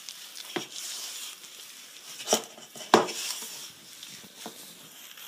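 Hands mixing and kneading a soft butter-and-flour biscuit dough in a bowl as a little more flour is worked in, a rustling, scraping noise. A few sharp knocks cut through it, the loudest about three seconds in.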